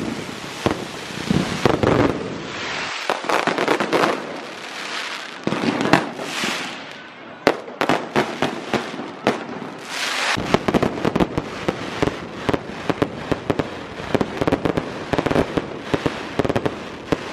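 Fireworks going off: a dense run of sharp bangs and crackling pops over a continuous hiss, easing briefly about midway before picking up again.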